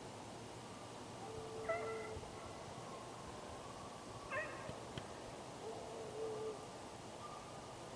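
Hunting hounds on a deer drive baying: several faint, drawn-out bawls a couple of seconds apart.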